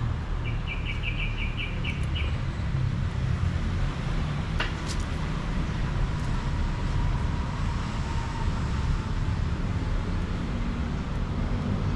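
Steady low rumble, with a bird's quick run of about eight short chirps near the start and a single sharp click a few seconds in.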